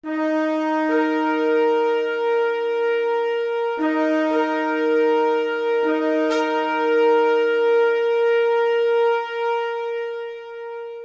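Shofars (ram's horns) blown together in long, overlapping held notes, with fresh blasts coming in about one, four and six seconds in, then fading near the end.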